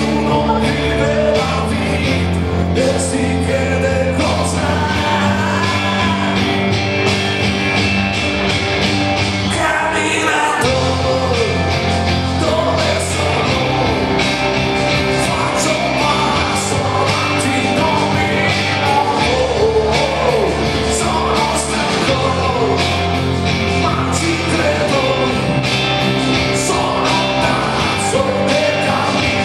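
Live rock song: a man singing over electric guitar and a band.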